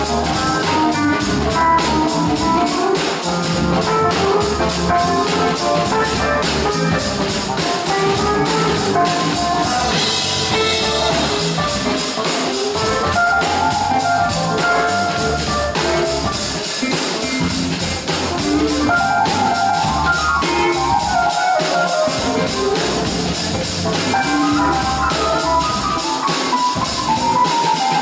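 Live jazz-funk band playing with a steady beat, led by drum kit and guitar.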